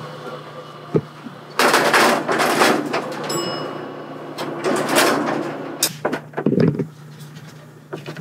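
X-ray equipment being slid and adjusted into position: two long scraping, rustling sweeps of about a second and a half each, with a brief faint beep between them.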